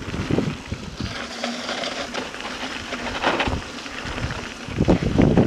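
Mountain bike rolling down a chalk and gravel trail with a steady buzz from the bike. About five seconds in, a louder low rumble sets in as the tyres run over rougher ground.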